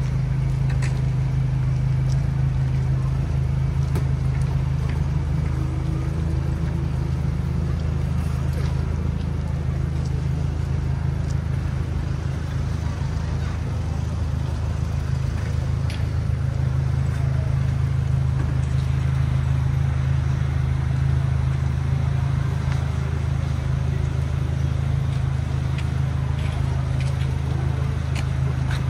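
An engine idling steadily, a constant low hum with no change in pitch, with a few faint clicks now and then.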